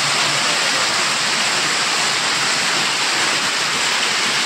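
Heavy rain mixed with hail pelting a paved courtyard: a dense, steady hiss.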